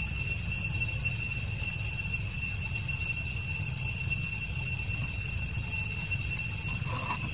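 Steady high-pitched insect drone, with faint chirps repeating about twice a second, over a low rumble.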